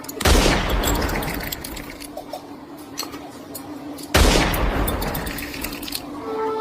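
Two sudden loud booms about four seconds apart, each with a heavy low end and trailing off over a couple of seconds.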